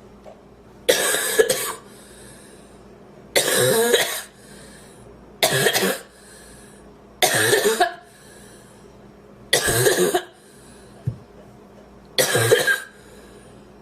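A woman coughing in a renewed coughing fit, six coughs about two seconds apart, each under a second long. She is trying to clear a piece of sandwich she inhaled, which she still feels in her windpipe.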